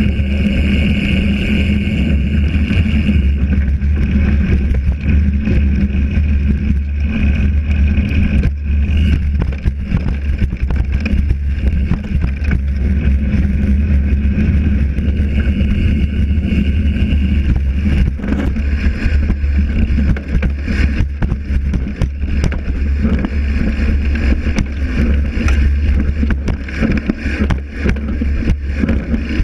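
Mountain bike riding a dirt and leaf-covered trail, heard from a camera mounted on its frame: a steady low rumble of wind on the microphone and tyres on the ground, with many small clicks and rattles from the chain and frame over bumps.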